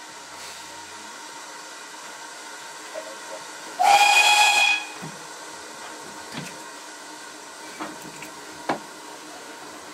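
A steam locomotive's whistle sounds one short blast of about a second, near the middle, over the steady running noise of the train; a few light knocks follow.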